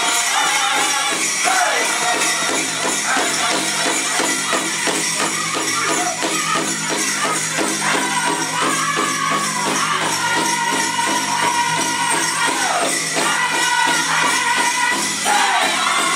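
Powwow drum group singing over a steady, evenly repeated drumbeat, with the jingling of bells on the dancers' regalia.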